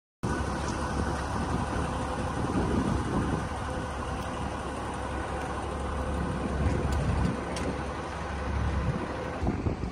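Steady outdoor traffic ambience on an airport terminal forecourt: a low rumble of running and idling vehicles with a faint steady hum. It drops off near the end.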